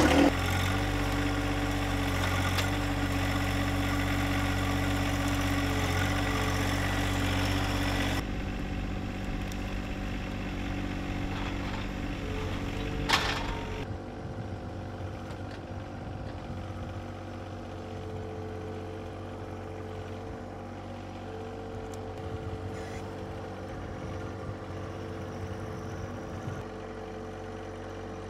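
John Deere compact tractor's diesel engine running steadily, loud and close for the first eight seconds, then farther off and quieter as the tractor works a brush pile with its loader grapple. About thirteen seconds in there is a single sharp knock.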